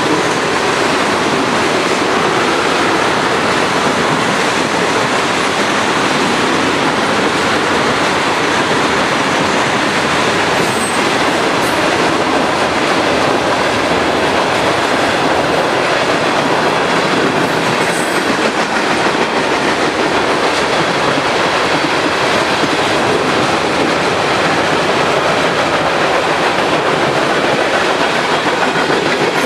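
Freight train of tank cars and covered hoppers rolling past close by at speed: a loud, steady din of steel wheels on rail.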